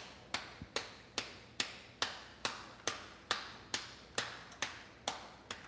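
Hands patting a ball of corn masa flat into a tortilla, palm against dough in an even rhythm of about two and a half wet slaps a second.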